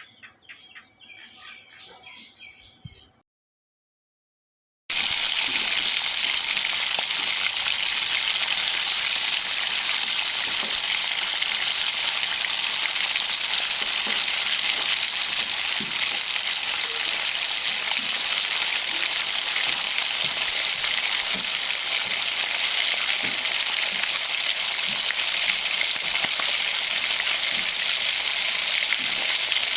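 Food frying in a hot pan: a steady loud sizzle with small crackles that starts abruptly about five seconds in, after a short dead-silent gap. Before the gap, faint bird chirps.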